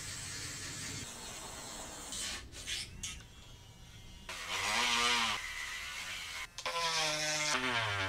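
Small corded rotary tool with a small disc buzzing as it trims away hard plastic from an engine cover. It runs in several spells, louder in the second half.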